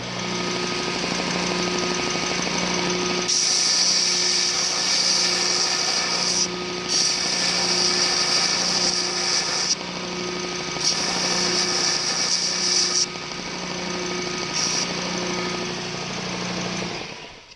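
Small metal lathe running with a steady motor hum, overlaid by several long bursts of high, hissing cutting noise as a tool works the brass, likely parting off the plug. The machine winds down and stops near the end.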